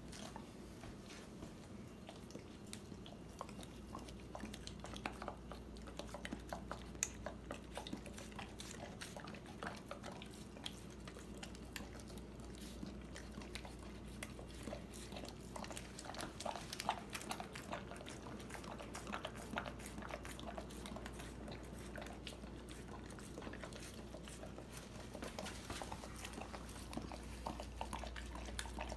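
A dog biting and chewing watermelon flesh out of a hollowed half rind: a quick, irregular run of small crunching bites.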